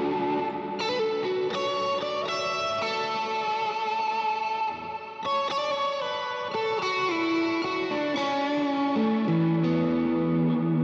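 Electric guitar played through effects pedals: slow, sustained ambient chords that ring on, with a new chord or note struck every second or so and a brief lull a little before the middle.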